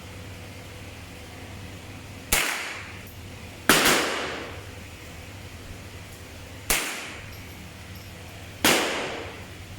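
Four single shots from a Chiappa M4 .22LR semi-automatic rifle, irregularly spaced, each followed by a short echoing tail.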